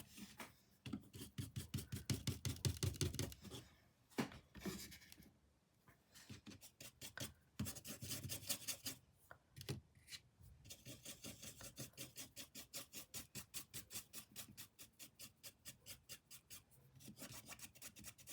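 Paintbrush scrubbing paint onto a canvas in quick back-and-forth strokes: a faint, rhythmic scratching that pauses briefly a few times.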